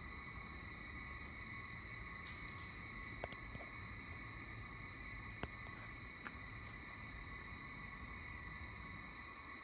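Night insect chorus in tropical forest: a steady, unbroken shrill hum at several pitches at once, with a few faint clicks in the middle.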